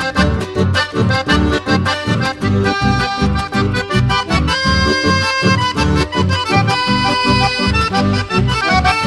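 Accordion-led music with a steady bass beat.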